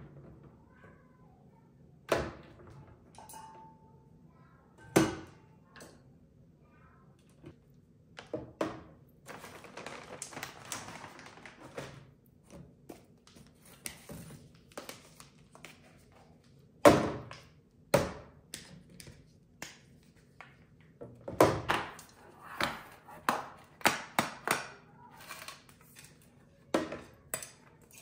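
Tumblers, tubs and canisters being set down into clear plastic storage bins: separate knocks and taps spaced a few seconds apart, a few seconds of rustling about a third of the way in, and a quicker run of taps and clatter near the end.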